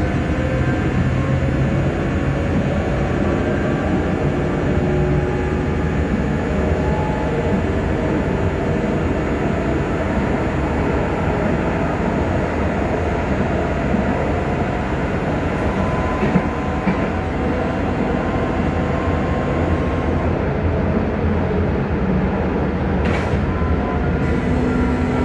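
Duewag B80D light-rail car running along the track, heard from inside: a steady rumble of wheels and running gear with faint whining tones that rise and fall in pitch. A single sharp click comes near the end.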